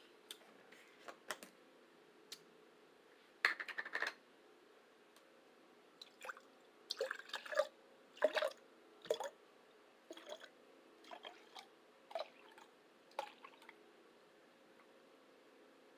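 A person chewing and eating, with irregular wet smacks and squelches of the mouth, louder around three and a half seconds in and again around eight seconds.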